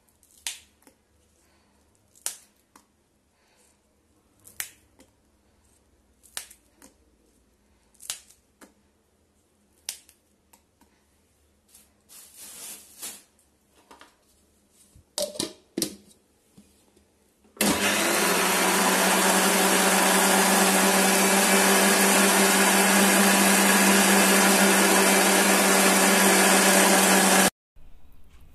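A series of light clicks and knocks as green chillies are dropped into a steel mixer-grinder jar, then the electric mixer grinder runs steadily at full speed for about ten seconds, grinding the chillies into the spinach paste, and cuts off suddenly.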